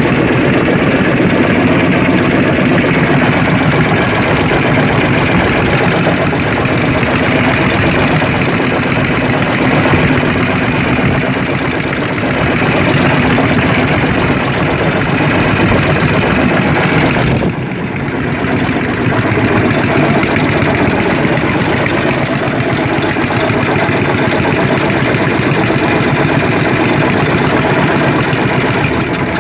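A fishing boat's engine running steadily, loud and close, dipping briefly about two-thirds of the way through.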